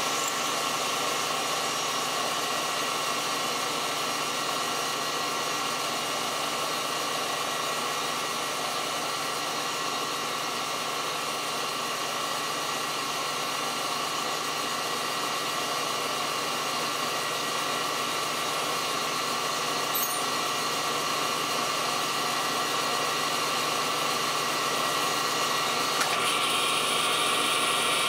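South Bend 10L metal lathe running steadily, its cutting tool turning a small shaft down to about 0.177 inch for a press fit. There is an even mechanical hum with a faint whine, and it grows brighter near the end.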